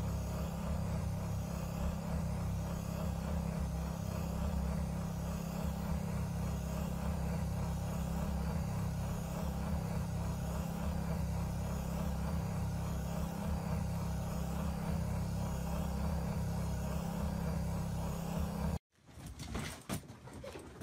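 Steady low motor hum with a faint pulse about once a second from the white machine the cat sits on. It cuts off suddenly near the end and gives way to the light pattering steps of a dog's booted paws on a hard floor.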